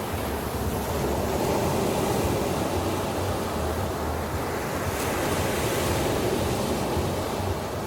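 Sea waves washing onto a beach, the surf swelling twice, with some wind buffeting the microphone.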